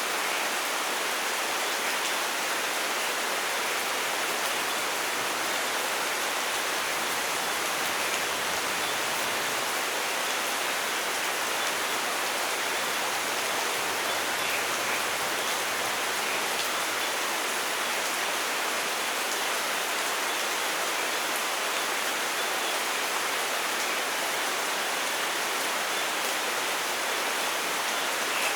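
Steady rain falling, an even hiss of drops that holds unchanged throughout, with no thunder.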